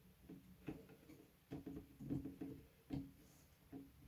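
Faint, irregular clicks and light taps of a precision screwdriver and tiny M.2 screws being handled and driven into a motherboard.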